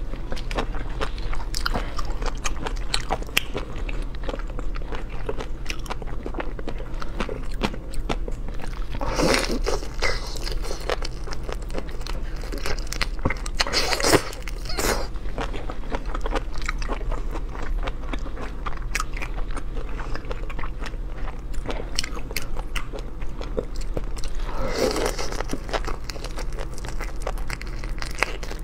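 Close-up eating of seafood: steady biting, crunching and chewing with many small wet clicks, and three louder noisy bursts along the way, over a low steady hum.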